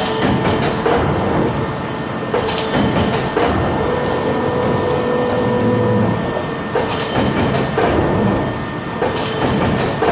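Göpfert Boxmaker SRE 2Z box-making machine running, a steady mechanical whine under irregular knocks and clatter as cardboard sheets are fed along its roller conveyor.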